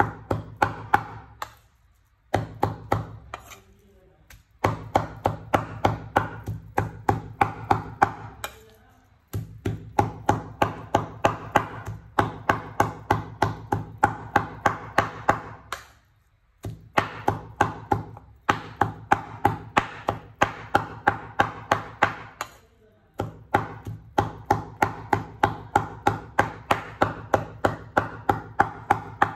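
Meat cleaver chopping raw pork on a wooden cutting board, mincing it by hand: quick, even strokes, several a second, in long runs broken by brief pauses.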